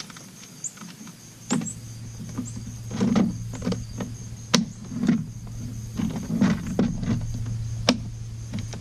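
Scattered knocks, clicks and short thuds of hands working gear and line aboard a small boat, over a steady low hum. Two sharper clicks stand out, one about halfway through and one near the end.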